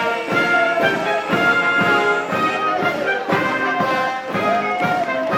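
Military band playing a march, brass instruments carrying the tune over a steady drumbeat.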